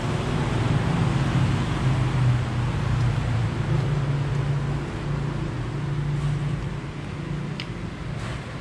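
Steady low engine hum over an even background hiss, typical of road traffic. A short light click sounds near the end.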